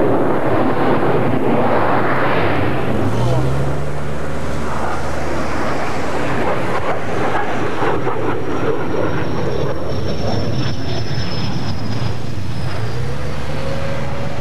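Loud, steady jet noise from the BAe EAP's two Rolls-Royce RB199 engines as the aircraft flies low and lands. The sound changes abruptly about three seconds in, and a thin high whine falls slowly in the second half.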